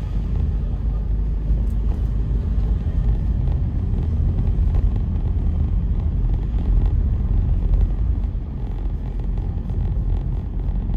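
A car driving slowly through city traffic: a steady low rumble of engine and road noise.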